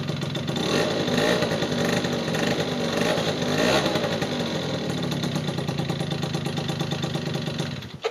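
Yamaha 50cc scooter engine running through its original stock exhaust: revved with throttle blips in the first half, then idling steadily until it cuts off near the end.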